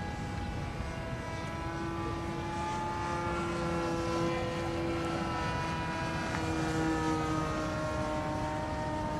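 Radio-controlled model airplane's engine and propeller running in flight, a steady drone whose pitch drifts slowly up and down as it flies past.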